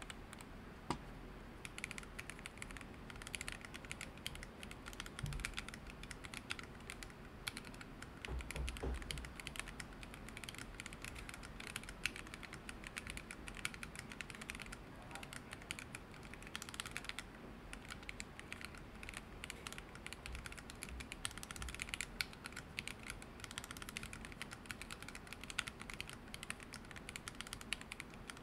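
Continuous fast typing on a Corne split keyboard in an open case, with factory-lubed Banana Split 62 g linear switches in nylon and polycarbonate housings and PBT keycaps: a steady run of keystrokes.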